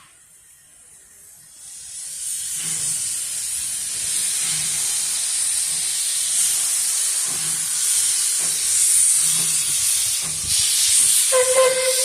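Puffing Billy narrow-gauge steam locomotive passing close by: a loud steam hiss builds up about two seconds in and holds, with faint low puffs beneath, and near the end the locomotive's steam whistle sounds one steady note.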